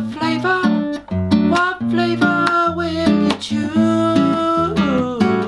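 Acoustic guitar strummed in changing chords while a man sings a melody over it.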